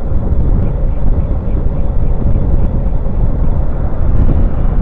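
Heavy wind rumble on a bicycle-mounted camera's microphone during a fast descent, with the noise of a car coming up from behind and passing close near the end.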